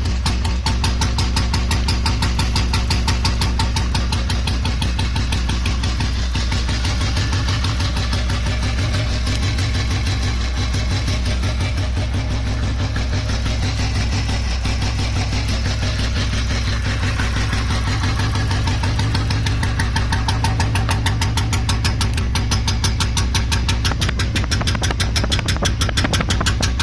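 Old Royal Enfield Bullet's single-cylinder engine running steadily through its exhaust with an even "dug dug" thumping beat.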